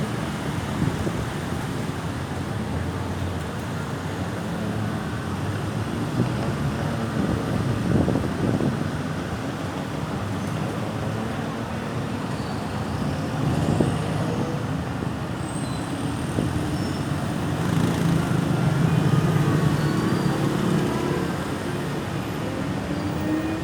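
Road traffic noise: engines and tyres of passing vehicles, a steady rumble that swells as vehicles pass about a third of the way in and again near three-quarters.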